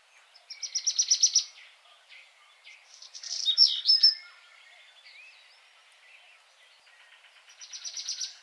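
Birds singing: a fast, even trill of about ten notes a second about half a second in, a louder jumble of varied chirps around three to four seconds, and the same trill again near the end.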